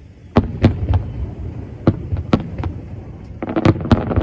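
Aerial firework shells bursting: about half a dozen sharp booms spread over the first three seconds, then a quick run of bangs near the end.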